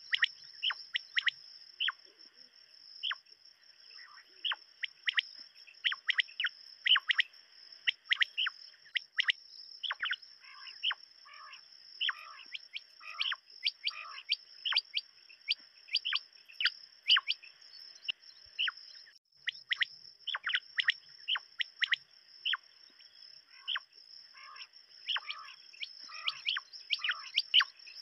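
Several quail calling: short, sharp calls in quick overlapping runs over a steady high hiss.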